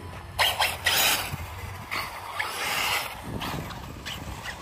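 Small electric 1/18-scale RC buggies driving, a rushing noise with two loud bursts about half a second and a second in.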